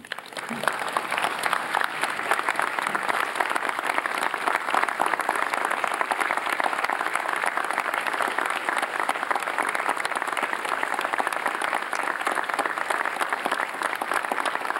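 A large audience applauding: many hands clapping, breaking out at once and holding steady.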